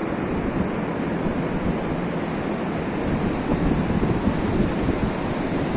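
Steady rush of wind buffeting the microphone over the sound of the sea, with no distinct events.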